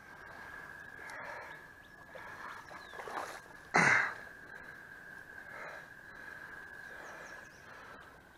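Soft breathing over quiet outdoor ambience, with a faint steady high tone throughout and one short, louder rush of breath-like sound about four seconds in.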